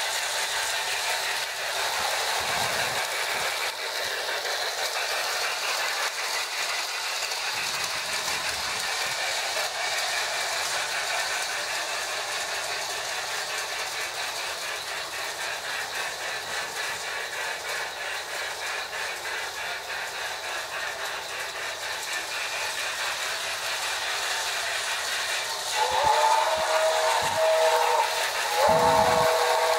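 Toy steam train running on three-rail track, with the Sound-O-Power board in its Marx 2731 tender giving a steady hissing steam sound. Near the end, a Tru-Blast 2 steam whistle in the lead passenger car blows twice, a chord of several notes.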